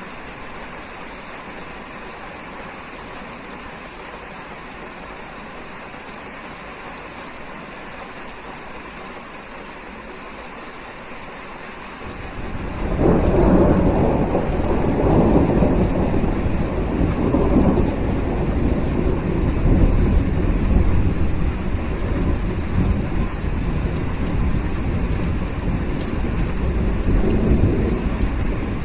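Steady rain, then about twelve seconds in a long rolling rumble of thunder breaks in loud and keeps going with repeated swells over the rain.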